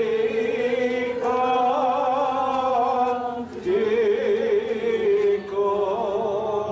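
Confucian ritual chant: voices holding long, drawn-out notes with a wavering pitch, in two phrases with a short break about three and a half seconds in.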